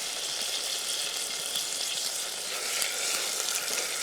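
Whole spices and green onion frying in hot oil in a pan: a steady sizzling hiss.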